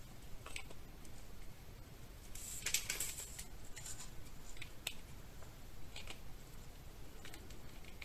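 Hands handling a small metal ball chain and plastic packaging: scattered light clicks and rustles, with a louder burst of crinkling about two and a half seconds in.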